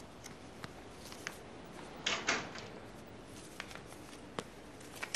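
A door opening, then a few light footsteps across an office floor, with a short rustle about two seconds in.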